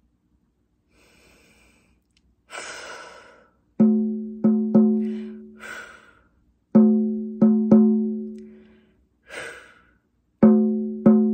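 A low-pitched struck percussion instrument sounding one note with overtones, in groups of three: a strike and then two quick strikes, each note ringing out for about a second, three groups in all. Between the groups come breathy exhalations.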